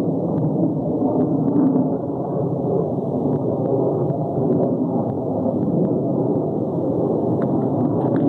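Fighter jet engine noise from aircraft dogfighting in the sky: a steady low rumble that swells and eases a little.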